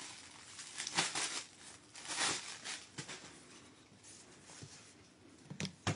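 Clear plastic wrapping rustling and crinkling in short, irregular spells as a wooden craft tool is handled and taken out of its bag.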